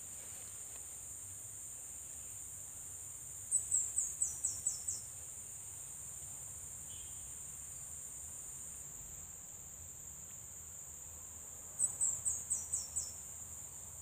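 Steady high-pitched drone of insects in swampy undergrowth, with two short runs of about six quick falling high chirps, one about three and a half seconds in and another about twelve seconds in.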